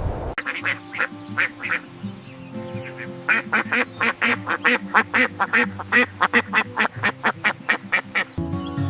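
Duck quacking in a quick, even run, about three quacks a second in the second half, over steady background music.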